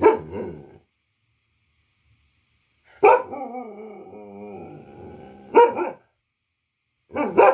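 Local-breed dog barking and howling: a short bark at the start, then one long howl of about three seconds with a wavering middle that breaks into a bark, and a quick double bark near the end.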